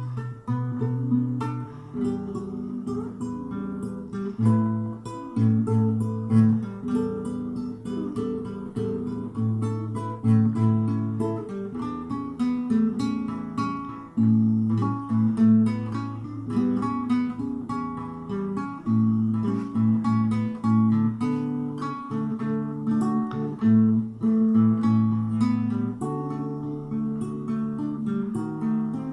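Solo acoustic guitar playing a slow instrumental ballad: plucked and strummed chords over low bass notes that change every second or so.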